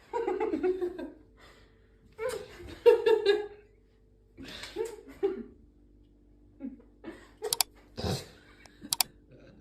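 A person laughing and giggling in several short bursts, with a couple of sharp clicks near the end.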